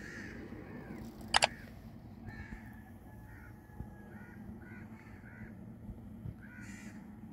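Birds calling outdoors, a string of short calls repeated every half second or so. A sharp double click about a second and a half in is the loudest sound.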